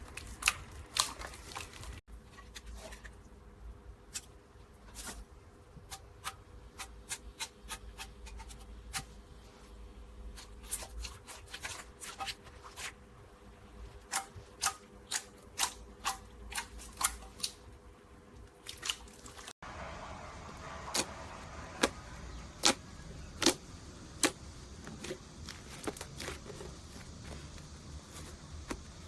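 Slime being pressed and squished by hand, giving a long series of sharp crackling clicks and pops, sometimes in quick runs. The sound changes abruptly twice, where one clip cuts to the next.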